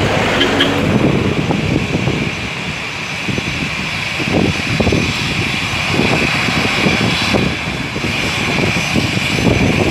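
Twin jet engines of a narrow-body airliner running at taxi power, a steady high whine over a low rumble, as the plane rolls slowly on the runway. Gusts of wind rumble on the microphone throughout.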